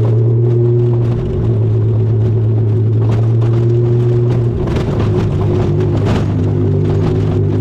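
Vehicle engine running steadily while driving, a loud low drone whose tone shifts briefly about a second in and again past the middle.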